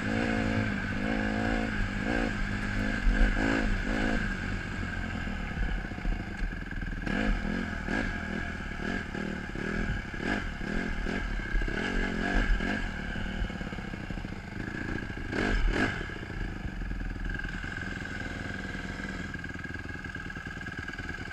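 Honda CRF150R's single-cylinder four-stroke engine under way, revs rising and falling over and over with the throttle, with clatter from the bike over rough ground. In the last few seconds it settles to a lower, steadier run toward idle as the bike slows and stops.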